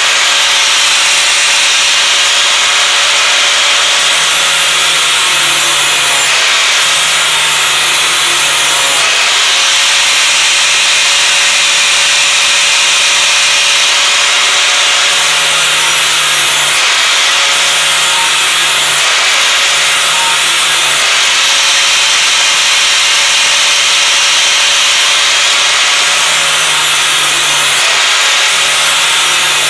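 Angle grinder grinding the edge of a steel lawn mower blade to sharpen it: a loud, continuous grinding with the motor's whine dipping slightly in pitch now and then.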